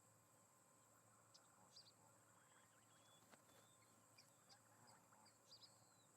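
Near silence from an outdoor nest-camera microphone: a faint steady hum with a few faint, short bird chirps scattered throughout and a couple of thin whistles midway.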